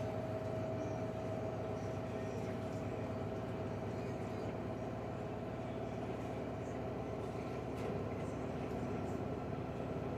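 LG front-loading washing machine on its cotton spin cycle, the drum spinning fast with a steady motor whine over an even rumble.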